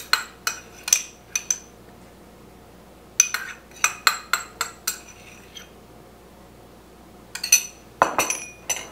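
Metal spoon clinking and tapping against a small ceramic ramekin and glass canning jars as it is spooned out: three clusters of light, sharp clinks with quiet pauses between.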